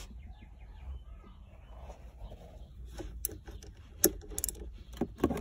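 Small ratchet wrench working the nut of a brass battery terminal clamp to disconnect the battery: several sharp metallic clicks and clinks, a few tenths of a second apart, from about three seconds in, over a low steady hum.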